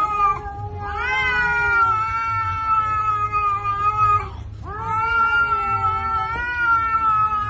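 Domestic cat yowling in long drawn-out calls: the tail of one call, then two long yowls, each rising at the start, held steady and sliding down at the end.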